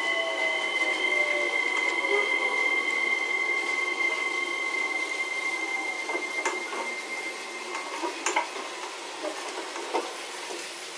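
Battery-powered Plarail toy train motors whining steadily, the whine slowly fading. Plastic wheels click sharply over the track joints a few times in the second half.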